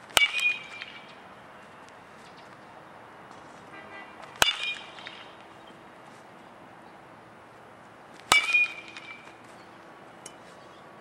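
A metal baseball bat hitting baseballs in batting practice: three sharp, ringing pings about four seconds apart.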